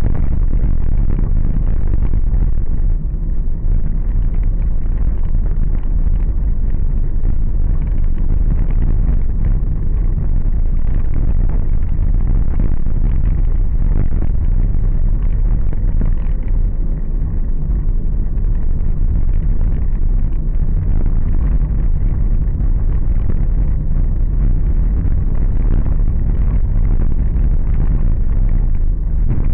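A car driving over a rough, potholed road, heard from inside: a loud, steady low rumble of road and engine noise.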